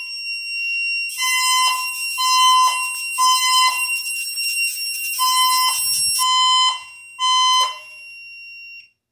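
Fire alarm horns on a Silent Knight IFP-2000 panel sounding a fire drill in the temporal-3 evacuation pattern: three half-second beeps, a pause, then three more, with steady high-pitched tones underneath. The alarm cuts off near the end.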